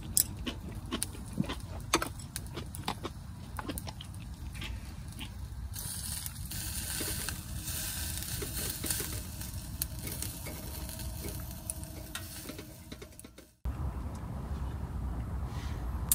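Metal chopsticks clicking against dishes, then from about six seconds in meat sizzling on a small mesh mini roaster over glowing charcoal as tongs turn it. Near the end it cuts suddenly to a steady low rumble.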